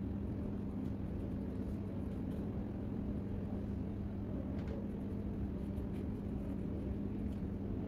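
Steady low background rumble with a constant low hum, and two faint ticks a little past the middle.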